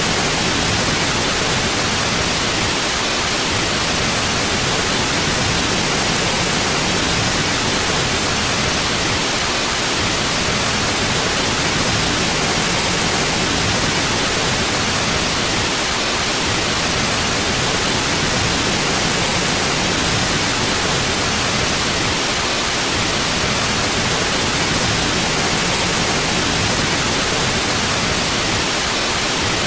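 Steady, even white noise: a constant hiss across the whole range with no changes or events.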